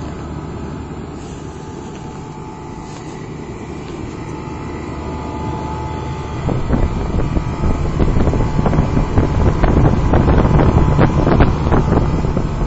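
1964 Trane 2-ton central air conditioner's outdoor unit running: a steady hum with a few faint steady tones. About six and a half seconds in it turns louder and rougher, with rushing air buffeting the microphone.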